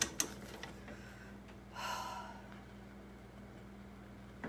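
A few clicks of a wire whisk against a saucepan at the start, then one audible breath out about two seconds in, over a faint steady hum.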